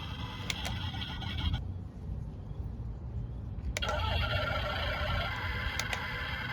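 Small electric gear motors of a remote-control excavator toy whining, cutting out for about two seconds, then starting again with a click.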